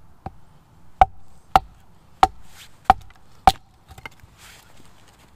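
Hatchet chopping into a log: five sharp strikes about two-thirds of a second apart, each with a short ring, among a few lighter knocks.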